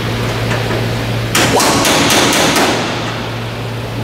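A quick run of about six sharp metallic knocks, a little over a second in, as the damaged aluminium skin panel of a Lancaster bomber's rear fuselage is worked loose by hand and tool.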